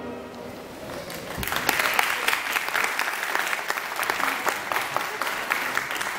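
The last of the music fades out, and about a second in an audience breaks into applause that keeps going.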